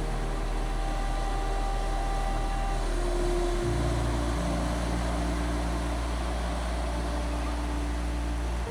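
Ambient music of sustained low pad chords, changing chord about four seconds in and stopping at the end, over a steady hiss of ocean surf.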